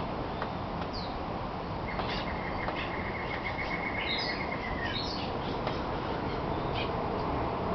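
Rainforest birds calling over a steady rushing background. One bird gives a rapid, even trill at one pitch for about three seconds, starting about two seconds in; others add short chirps and quick falling notes.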